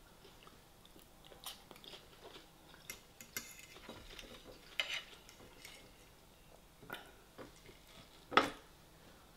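Metal fork scraping and clinking against a ceramic plate as food is gathered up, in scattered short taps and scrapes. One louder noise, lasting about a third of a second, comes near the end.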